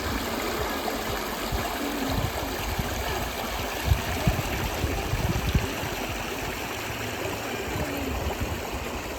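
River water running over rocks, a steady rushing, with occasional low thumps on the microphone.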